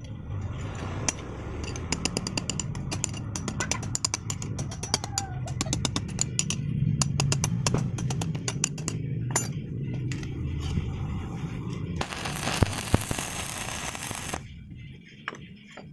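Low steady hum with scattered ticks and taps as steel pieces are handled and set in place, then a stick-welding arc crackling for about two and a half seconds near the end, stopping abruptly.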